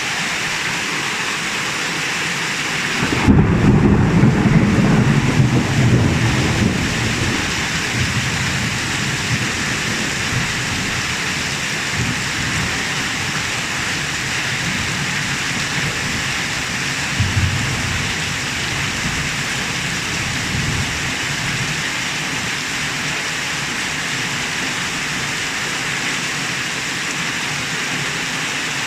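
Heavy rain falling steadily. About three seconds in, a sudden loud clap of thunder rumbles on for several seconds. A shorter, fainter rumble of thunder comes midway.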